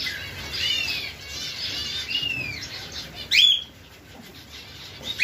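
Small cage birds chirping and calling, many short high chirps and some arching calls, with one loud call that sweeps upward about three and a half seconds in.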